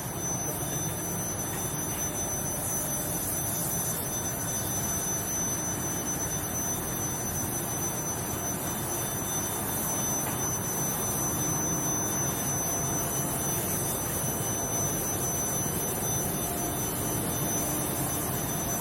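Rolled-steel induction tempering furnace line running: an even, steady hiss with a thin, high-pitched whine held at one pitch.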